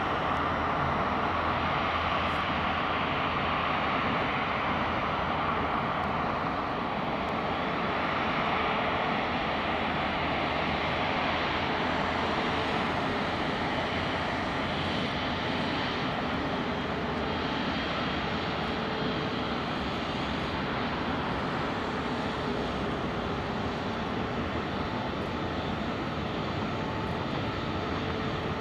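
Airbus A350-900's Rolls-Royce Trent XWB turbofan engines running at taxi power: a steady jet rush that eases a little as the airliner taxis past.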